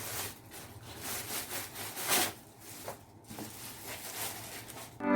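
Faint scattered rubbing and light knocks of packaging and cables being handled while a computer monitor is unpacked.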